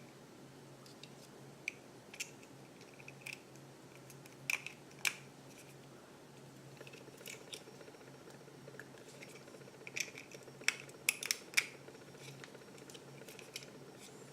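Scattered small clicks and taps of 3D-printed plastic parts and small metal hardware being handled and fitted together, in clusters about four to five seconds in and again around ten to twelve seconds in, over a faint steady low hum.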